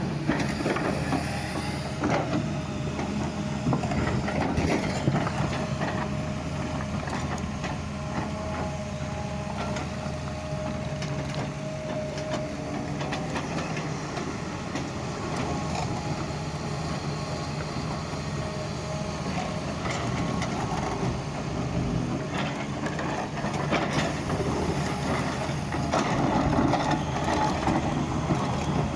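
Doosan excavator working: its diesel engine runs steadily under load while the bucket scrapes and knocks against soil and stones. A steady higher whine rides over the engine through the first half.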